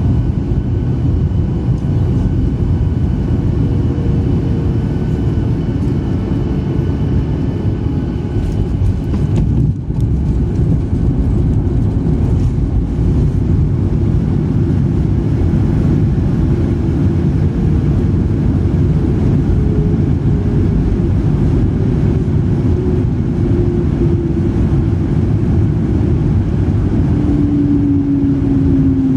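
Cabin noise of a Skymark Boeing 737-800 around landing: a steady, loud low jet-engine roar, with a tone that slowly falls in pitch and grows stronger toward the end.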